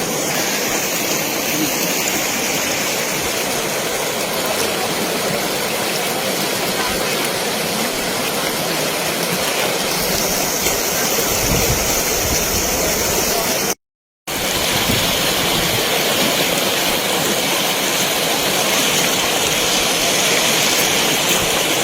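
Steady rushing of flowing water, cut off by a brief silence about two thirds of the way through before resuming.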